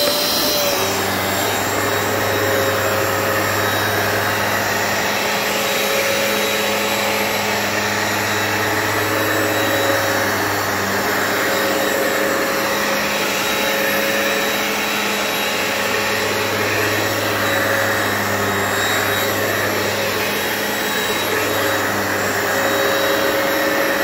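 Hoover Power Path carpet cleaner running: its motor whine, just started, rises and settles within the first second, then holds steady. Under the whine a low hum swells and fades every few seconds.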